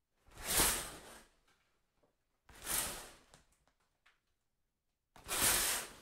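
Shower curtain pulled along its rod three times, each pull a quick swish lasting about a second, followed by a few light clicks.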